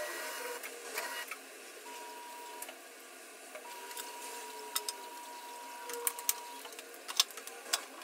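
Packages and plastic containers clicking and knocking as food is put back into an open refrigerator, with several sharp taps in the second half. A faint steady high tone cuts in and out underneath.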